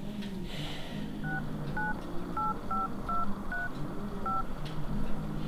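Mobile phone keypad touch tones: seven short dual-tone beeps at an uneven pace as a phone number is dialed.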